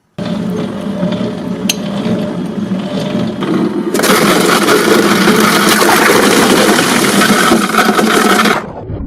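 A crushing machine grinding ice cubes: steady mechanical grinding with crunching. It grows louder and harsher about four seconds in, then cuts off shortly before the end.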